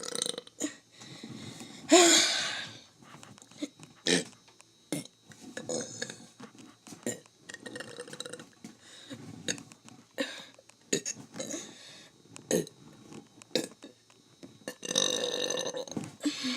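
A person burping on purpose, again and again. There is a loud, drawn-out belch with a sliding pitch about two seconds in and another long belch near the end, with short clicks and brief gulping sounds in between.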